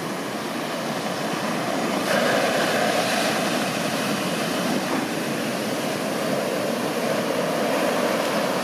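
Heavy shore-break surf: a large ocean wave crashes about two seconds in, and the rush of breaking whitewater carries on steadily after it.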